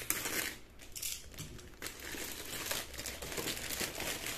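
Plastic courier mailer bag crinkling and rustling as it is torn open by hand and a boxed item is pulled out, with many small sharp crackles.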